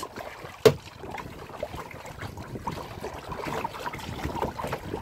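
Water splashing and lapping against a plastic sit-on-top kayak as it is paddled, with a single sharp knock less than a second in.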